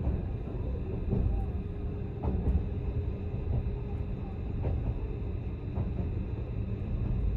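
Steady low rumble of a moving vehicle, with a faint steady hum above it and a few light ticks.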